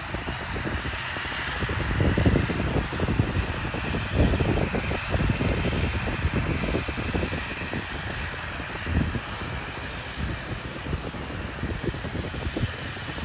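Aircraft engine noise: a loud, steady rush with a rumbling low end, swelling about two seconds in and again about four seconds in.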